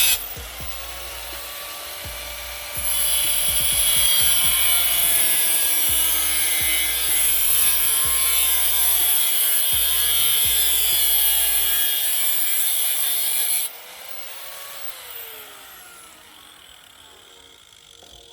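Power tool, likely an angle grinder, grinding the steel floor-pan patch. It runs lighter for the first few seconds and bears in hard from about three seconds in. About three quarters of the way through it is released and a tone winds down.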